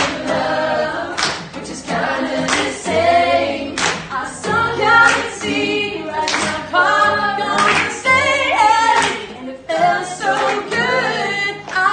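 A woman singing to a strummed acoustic guitar in a live acoustic performance, with other voices singing along. Guitar strums land about every second and a half.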